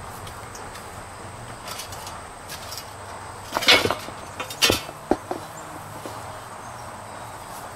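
Metal two-wheel hand truck knocking and scraping as its nose plate is pulled out from under a small granite monument set on its concrete base: a loud cluster of knocks about three and a half seconds in, then a few single knocks over the next second and a half. Steady insect buzz in the background.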